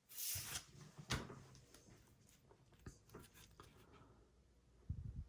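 Trading cards being slid and flipped in the hand. A brief rustle of card on card at the start, then a sharp click, a few lighter clicks, and low thumps near the end.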